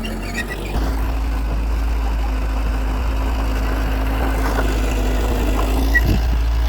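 Heavy diesel engine running steadily, getting a little louder about a second in.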